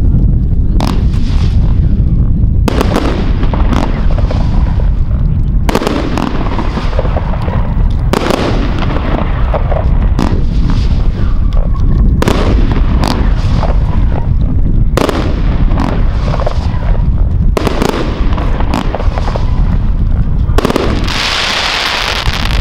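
Gaoo Scenario, a 35-shot 25 mm fan-shaped firework cake, firing: a rapid string of launch thumps and star bursts with a continuous rumble. It ends in a dense hissing crackle of glittering stars.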